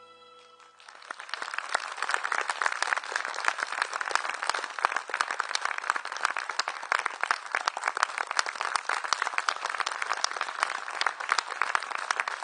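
Audience applauding with many hands clapping, starting about a second in as the last held notes of the music fade out.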